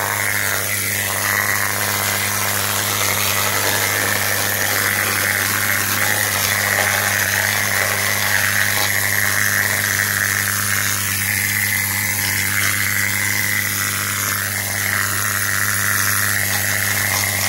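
Kobe pneumatic needle scaler running steadily against the rusty underbody steel of a Jeep, its needles hammering off rust and scale.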